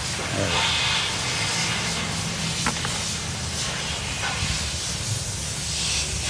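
Steady, fluctuating hissing spray, likely air or cleaner blown onto engine parts during a wash, over a low hum, with a few light clicks.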